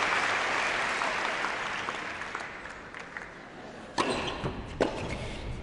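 Audience applause dying away over about three seconds, then a tennis ball bounced twice on the court, two sharp knocks under a second apart.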